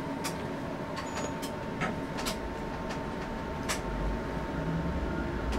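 Running noise of an LEB series 60 electric train heard inside its driver's cab: a steady hum with a faint steady tone, a few sharp clicks, and a low rumble that swells about four seconds in.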